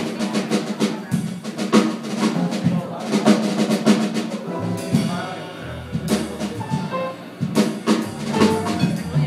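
Live jazz playing: a drum kit with snare, bass drum and cymbals keeping a busy beat under guitar.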